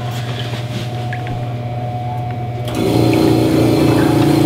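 Small electric air compressor running under an egg-washing sink, a steady motor hum as it blows air bubbling through the wash water. The hum grows louder about three seconds in.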